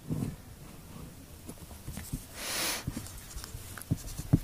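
Felt-tip marker on paper: soft taps and short scratches as writing starts near the end, with a brief breathy rustle a little past halfway.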